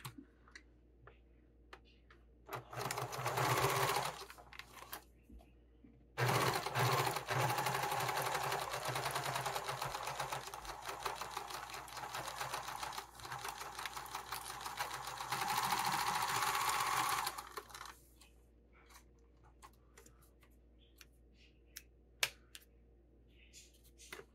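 Domestic electric sewing machine stitching a seam through two layers of vinyl: a short burst of stitching, then a longer run of about eleven seconds that slows and picks up speed again as the curved edge is guided through. A few light clicks of handling follow.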